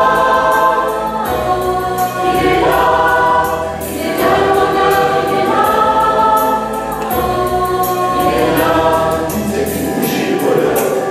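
Mixed choir of men's and women's voices singing a French pop song together, in phrases of a second or two.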